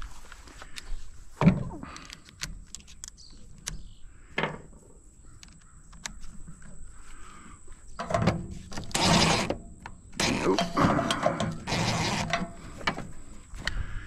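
Metal knocks, clicks and scraping as an air conditioning unit is pulled apart for scrap, with a sharp knock about a second and a half in and louder stretches of scraping and rattling from about eight to twelve seconds in.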